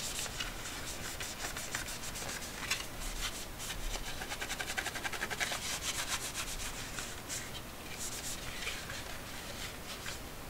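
A cloth being scrubbed quickly back and forth over the hard plastic case of a Casio fx-7400G Plus calculator, a scratchy rubbing. The strokes come fastest and loudest around the middle, then ease off near the end.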